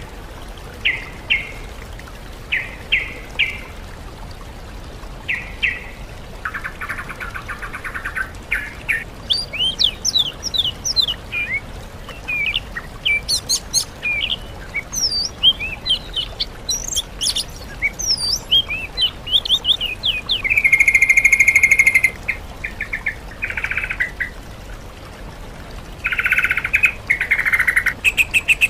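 Songbirds singing in a mix of yellow-vented bulbul, oriental magpie-robin and greater green leafbird songs: quick runs of short notes and rising and falling whistles, with a harsh buzzing chatter about seven seconds in and a louder one about twenty-one seconds in.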